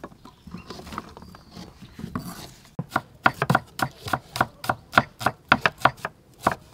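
Knives slicing shallots on wooden chopping boards: soft cutting at first, then about three seconds in a quick run of sharp knocks of the blades against the wood, several a second.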